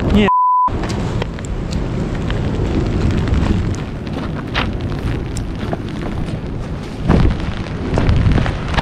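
Heavy wind buffeting the microphone of a camera carried at a run down a rocky slope, with scattered knocks and scuffs and a louder thump about seven seconds in. About a third of a second in, all other sound cuts out for a short steady beep tone, a bleep used to censor a word.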